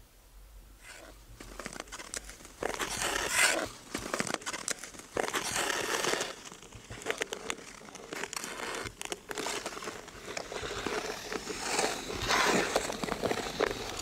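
Ice skate blades scraping across clear black lake ice in several long, rasping strokes, loudest a few seconds in and again near the end.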